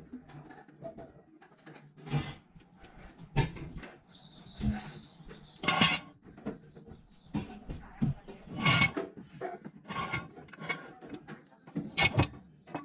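Irregular knocks, clatters and scrapes of tools and equipment being handled, at a loose pace of a few a second with rustling between them.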